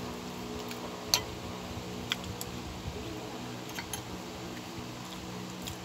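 A few light clicks of a spoon and fork against a bowl while eating, the sharpest about a second in, over a steady low hum.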